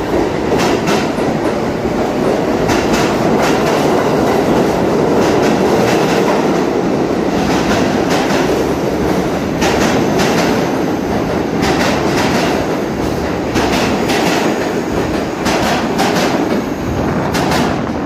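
New York City subway train running past the platform, a steady rumble of wheels and motors with paired clicks every second or two as the wheels cross rail joints.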